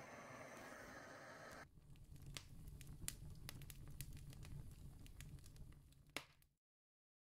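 Faint steady hiss, then faint scattered crackles and ticks over a low rumble, stopping dead near the end.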